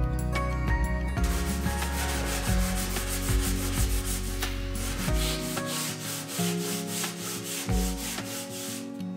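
Sandpaper on a hand-held sanding pad rubbing back and forth over the wooden case of a dovetailed blanket chest. It starts about a second in as quick, even strokes, several a second, and stops near the end.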